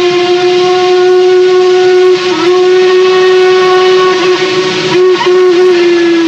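Steam locomotive whistle blowing one long, steady note, with a few brief dips in pitch where it is feathered, over the noise of the working train.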